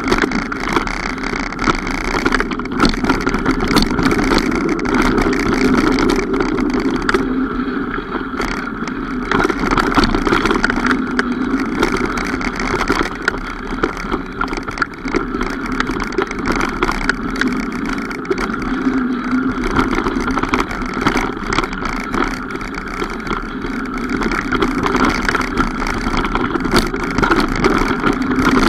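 Mountain bike being ridden along a trail: steady tyre and wind noise with frequent rattles and knocks over rough ground.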